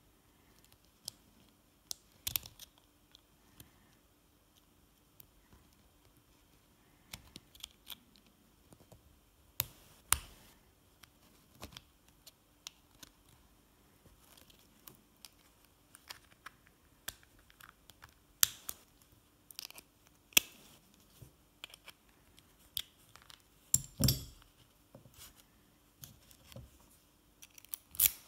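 Scattered small metallic clicks, snaps and scrapes of pliers gripping and working at the back of an oval lock cylinder's plug to take the lock apart. The loudest is a knock about 24 seconds in, with another sharp click near the end.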